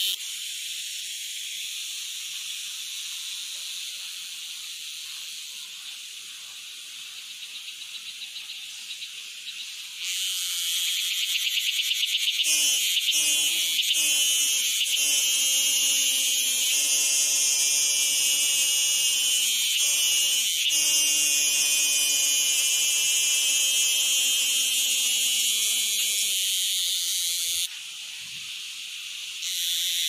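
Steady shrill buzzing of insects, which grows louder about ten seconds in and eases off shortly before the end. A lower-pitched buzzing drone joins it through the middle.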